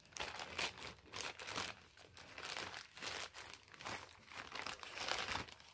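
Packaging bag crinkling and rustling as it is opened by hand, in irregular bursts.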